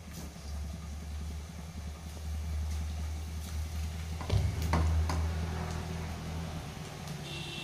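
Onion pakoda batter frying in hot oil in a kadai: sizzling, with a few sharp crackles about four and a half seconds in, over a steady low rumble.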